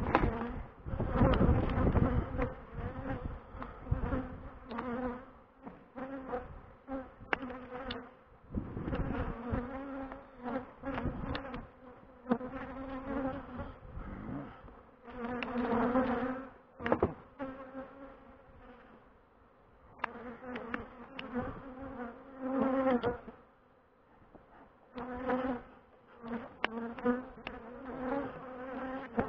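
Honeybees buzzing around an opened hive, their flight hum swelling and fading again and again as single bees fly close past the microphone. A few light clicks sound in between.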